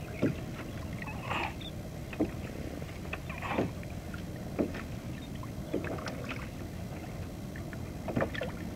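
Water sloshing and splashing beside a kayak hull as a hand holds a landed bonefish in the water for release: a string of short splashes, roughly one a second, over a steady low wash of water and wind.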